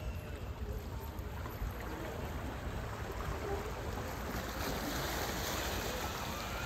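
Seaside ambience: wind rumbling on the microphone over a steady wash of sea water on the shore rocks, growing slightly louder in the second half.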